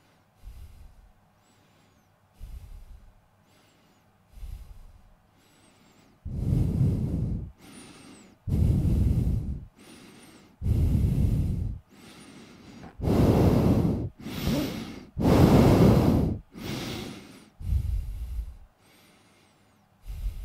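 Breathing in and out, faint slow breaths at first, then from about six seconds in much louder, heavy breaths, each about a second long, one after another.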